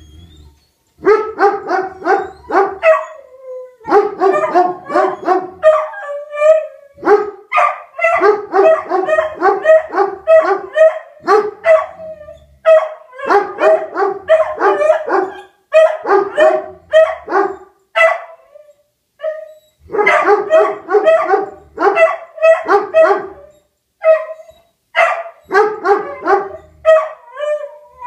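A beagle and a German Shepherd baying and howling, set off by a tornado siren: loud runs of short, pitched bays, several a second, broken by brief pauses.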